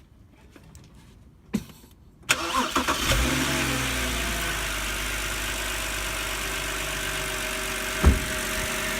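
BMW 328i straight-six engine cranked and starting about two seconds in, then settling into a steady idle: the new ignition coil on cylinder one has cured the misfire. A single sharp knock near the end.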